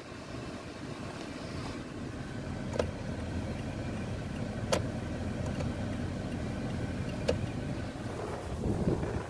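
Toyota Tacoma's 3.5 L V6 idling in park, a steady low rumble heard from inside the cab. Three short sharp clicks stand out, spaced a couple of seconds apart.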